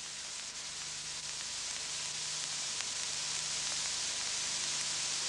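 Steady hiss of rushing air, slowly growing louder, over a faint low hum.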